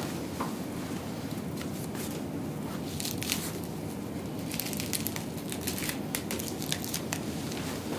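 Rustling and crinkling with many small crackling clicks over a steady low hum, the clicks thickest a few seconds in and again through the middle of the stretch.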